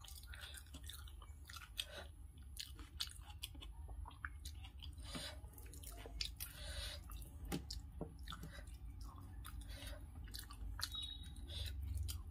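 Close-up chewing and wet mouth sounds of a person eating rice and fried fish, with many small irregular clicks and squishes, partly from fingers mixing rice on a steel plate, over a faint low hum.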